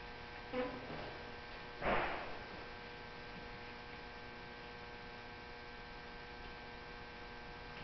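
Steady electrical mains hum made of several faint steady tones. It is broken by brief handling noises, the loudest a short rushing noise about two seconds in.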